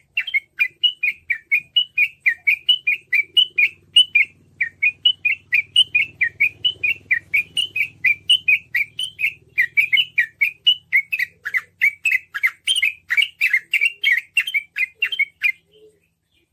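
Yellow-vented bulbul (trucukan) singing in the fast 'ropel' style: a long unbroken run of quick chirping notes, about five a second, which stops about a second before the end.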